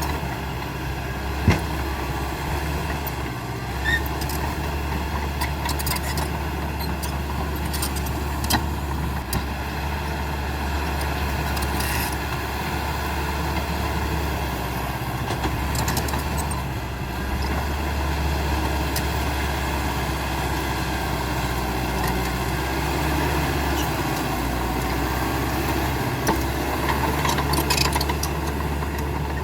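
CAT D5K XL bulldozer's diesel engine running steadily, with a deep low hum and scattered sharp knocks now and then, the loudest about a second and a half in.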